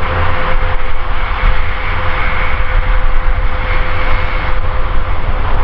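Airbus A380 in flight, its four Engine Alliance GP7000 turbofans giving a loud, steady jet noise with a constant whine held throughout, over a low rumble.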